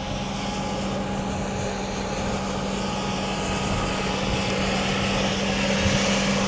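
Tractor and air seeder running steadily at a standstill: a steady engine and fan hum over a broad rushing noise.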